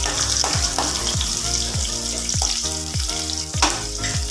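Chopped shallots and green chilli sizzling in hot oil in a kadai, stirred with a steel ladle that clicks against the pan a few times; this is the tempering stage of the rasam. Background music with a steady beat plays underneath.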